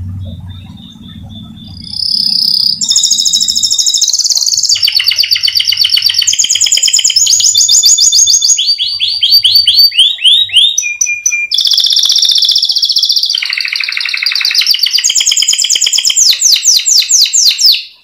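Domestic canary singing a long rolling song. From about two seconds in it runs unbroken as a chain of rapid trills, switching to a new repeated note every second or two. It stops suddenly at the end.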